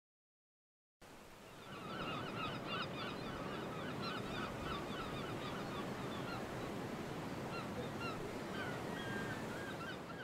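A large flock of geese honking, many overlapping calls over a steady rushing background. It starts about a second in, after a moment of silence.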